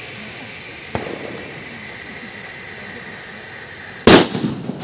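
A homemade firecracker hissing as its fuse burns, with a small pop about a second in, then going off with one very loud bang about four seconds in, its echo trailing off.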